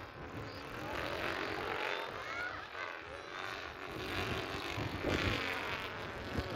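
A stack of three dual-line stunt kites making a rasping, engine-like drone, like a motorcycle exhaust, from the fabric at the back of the kites fluttering in the wind. Its pitch rises and falls as the kites swoop.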